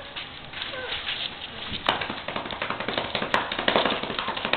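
Dense, irregular rustling and tapping from mastiff puppies scrambling about on a blanket and newspaper, growing busier about two seconds in.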